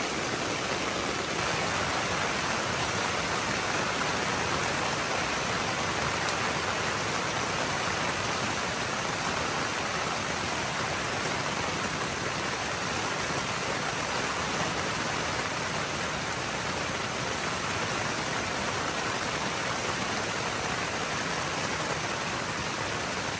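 Steady rush of flowing water, an even hiss without breaks.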